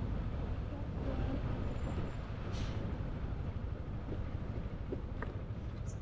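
Riding noise from a Yamaha Aerox scooter under way: a steady low rumble of wind on the microphone mixed with engine and road noise, with a couple of faint brief ticks.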